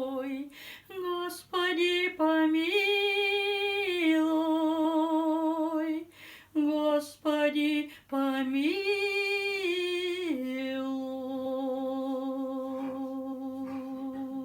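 A woman's voice singing a wordless melody with vibrato, in short phrases and then one long held closing note from about ten seconds in.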